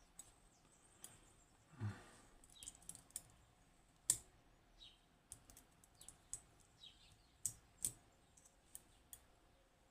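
Small metal parts of a Western Electric 30B lever lock being handled as it is taken apart: scattered, irregular light clicks and taps of its levers and spacers.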